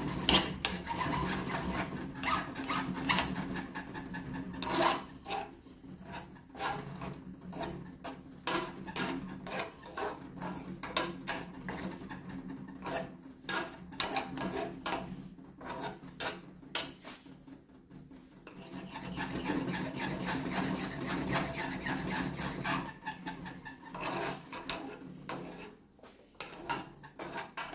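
Hand file rasping back and forth across the freshly cut end of a pipe in repeated strokes, with a couple of brief pauses, truing up a crooked saw cut.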